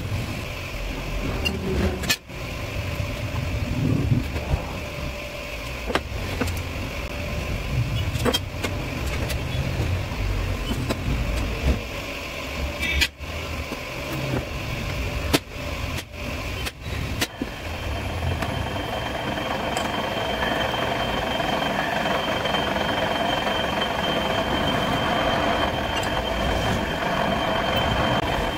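A steady low mechanical rumble with a few sharp light knocks while stainless steel square tubes are handled on a workbench. From about two-thirds of the way in, a steady motor drone with a fixed whine takes over: a drill press drilling a hole in a stainless steel square tube held in a vise.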